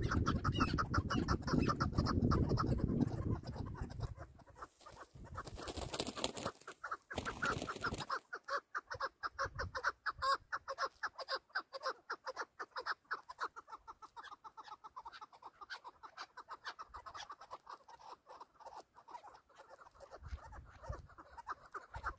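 Chukar partridge calling, a long run of fast, repeated clucking notes. Wind rumbles on the microphone for the first few seconds and again near the end.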